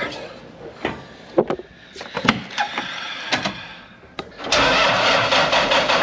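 A few sharp knocks and clicks in the cab, then about four and a half seconds in a John Deere row-crop tractor's diesel engine starts and keeps running loudly.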